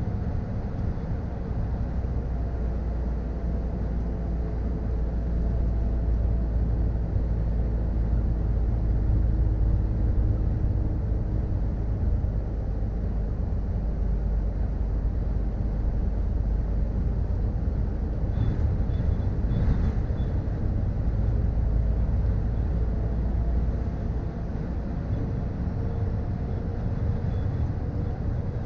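2013 Scania R440 truck's straight-six diesel engine running under load while hauling a loaded trailer, heard from inside the cab together with road and tyre noise: a steady low drone that swells a little through the middle and eases off near the end. A few faint clicks come about two-thirds of the way through.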